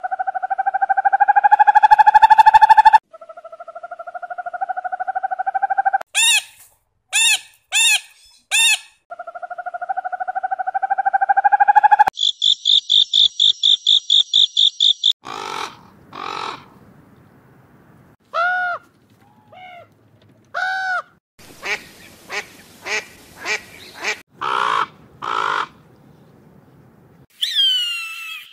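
A string of separate animal calls, mostly bird calls and squawks, cut one after another: long held calls, short sweeping calls repeated several times, a rapid high trill, then bursts of short squawks.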